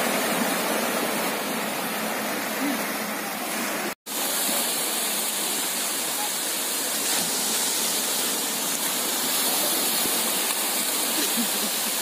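Surf breaking and washing through the shallows, a steady rushing noise. It drops out for a split second about four seconds in.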